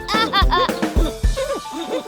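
Backing music for a cheerful children's song, with a steady drum beat and short wavering vocal-like tones in the first second.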